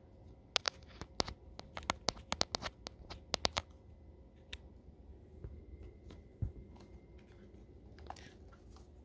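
A quick run of small, sharp clicks over about three seconds as a vape cartridge is fitted into a Yocan Uni Pro battery, then faint handling noise and a soft bump.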